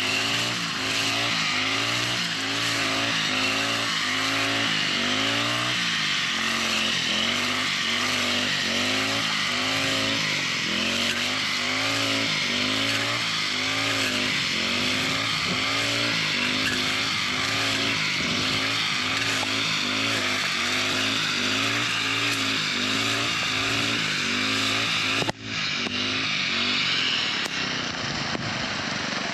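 Petrol brush cutter running, its engine note rising and falling over and over as it is swung side to side through tall grass. There is a sudden brief break near the end, after which it runs more evenly.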